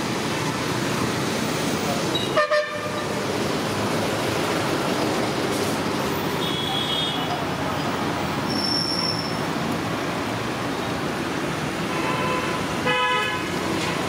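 Vadas deep-frying in a large iron kadai of oil, a steady sizzle. Vehicle horns toot several times over it, loudest about two seconds in and again near the end.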